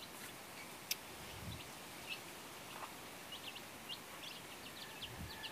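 Domestic chicks peeping while they feed: scattered short, high, falling cheeps that come more often toward the end. There is a single sharp click about a second in.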